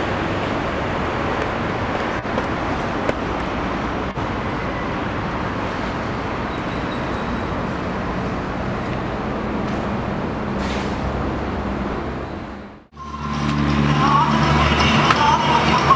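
Steady outdoor street and traffic noise. It fades out at a cut about thirteen seconds in, and a louder, busier street ambience with a low hum follows.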